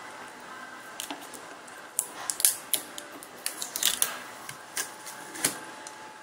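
Hands handling a Delta Qool Evolution espresso machine's plastic body while working at a red rubber plug that is marked to be removed: a run of irregular sharp clicks, taps and scrapes, the loudest in the middle.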